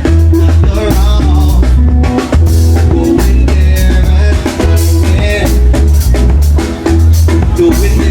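Loud party music with a heavy, pulsing bass line and a steady drum beat.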